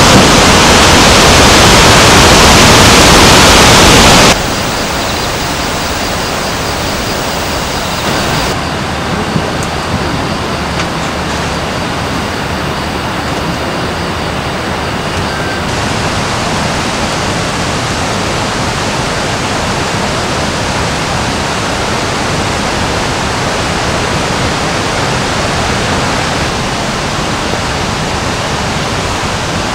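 Mountain stream rushing over rocks, a steady even rush of water. It is much louder for the first four seconds, then drops to a steady lower level.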